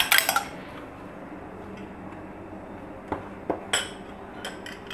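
A metal spoon beating an egg in a small glass bowl: rapid clinking of spoon on glass that stops about half a second in. A few single clinks of spoon and glassware come near the end.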